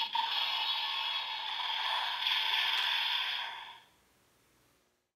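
DX Evol Driver toy belt playing an electronic sound effect from its built-in speaker: a steady hiss over a held tone, fading out just before four seconds in.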